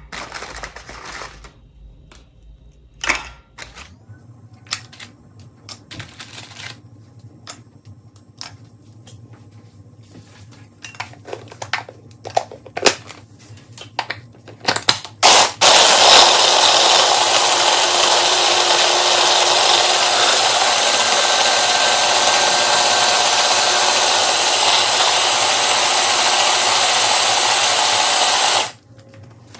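Scattered light clicks and knocks as Oreo cookies are handled. About halfway, an electric chopper starts and runs loud and steady for about thirteen seconds, grinding the cookies into crumbs for the cheesecake base, then stops abruptly near the end.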